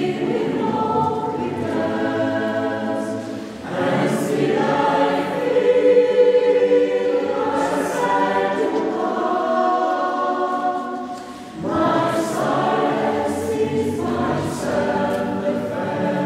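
Mixed choir singing sustained chords in several voices, with new phrases starting about four and about twelve seconds in.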